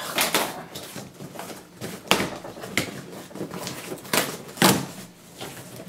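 Packaging and camera accessories being handled: rustling broken by about five sharp clicks and knocks.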